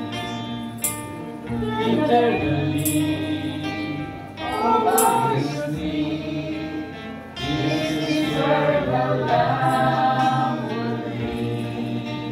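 A small church choir of men and women singing a hymn together with keyboard accompaniment, in phrases with short breaks between lines. A tambourine is struck now and then.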